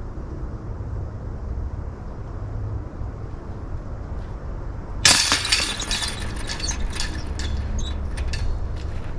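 A disc slams into the chains of a disc golf basket about five seconds in, and the chains jangle and rattle, fading away over the next couple of seconds.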